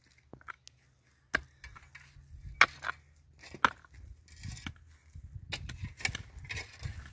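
A series of sharp knocks roughly a second apart, the loudest about two and a half seconds in, followed by a stretch of rustling and dull thuds.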